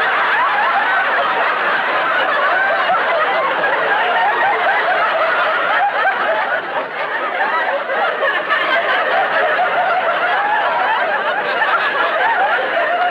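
Large live studio audience laughing hard and without a break, many voices at once, in response to a punchline.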